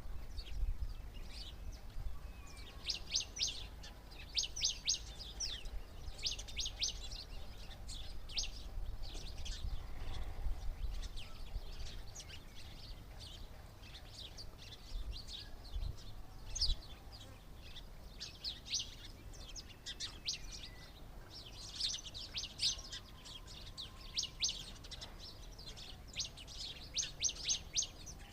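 Small birds chirping in quick clusters of short, high notes, repeated every second or two, over a low rumble.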